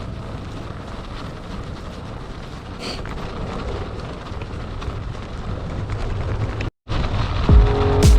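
Mountain bike riding on a snowy trail: a steady rush of wind on the microphone and tyre rumble that grows louder. It cuts off abruptly near the end, and electronic music with deep, downward-sliding bass notes starts.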